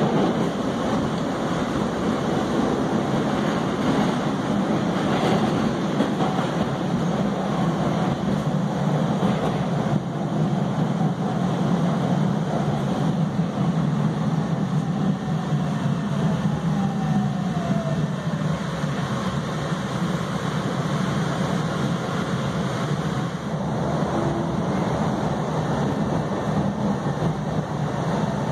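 New MBTA Red Line 1900-series subway car running between stations, heard from inside the car: a steady rumble of wheels on the rails and the running car. A couple of faint falling whines come through about halfway and again near the end.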